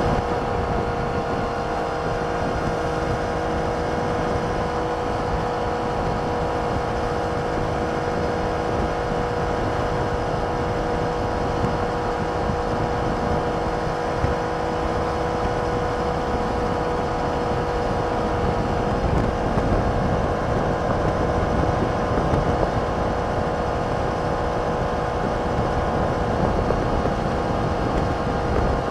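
Triumph Trident 660's inline three-cylinder engine through its stock exhaust, running at steady revs as the motorcycle cruises, heard from the rider's seat.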